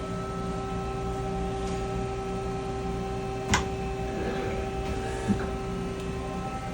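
Steady machine hum with several fixed tones. A sharp click comes about three and a half seconds in, and a smaller knock follows nearly two seconds later.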